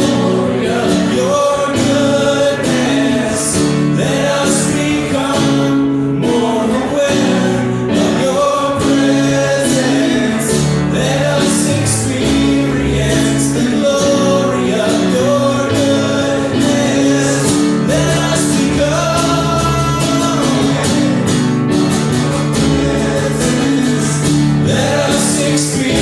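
Live Christian worship song: a band plays held chords while a voice sings over it.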